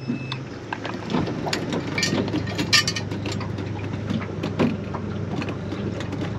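A boat motor's steady hum cuts off about half a second in, followed by scattered knocks, clicks and rattles of gear being handled aboard a small boat.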